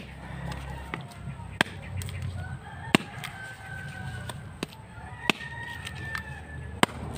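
Sharp knocks of a bolo knife striking a hand-held coconut, about seven at an uneven pace, as the shell is cracked open. A rooster crows twice, each call about a second and a half long.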